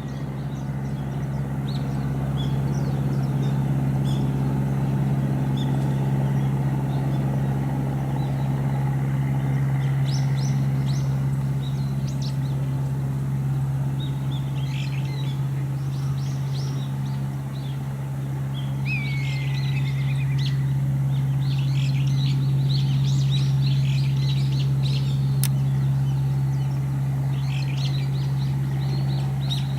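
A steady low machine hum, with small birds chirping over it in short bursts, including one brief falling whistle.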